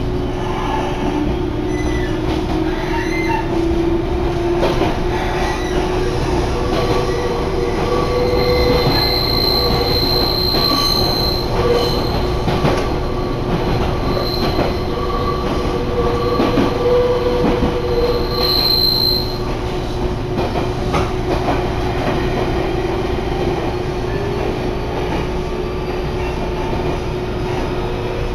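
Meitetsu Chikkō Line electric train running, heard from aboard. A steady rumble of wheels on rail carries a motor tone that rises slightly over the first few seconds. A high wheel squeal comes in from about eight to nineteen seconds in.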